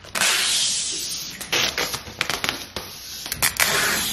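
Protective plastic film being peeled off an LG refrigerator's door: a crackling, rustling tear that comes in several pulls, with sharp crackles.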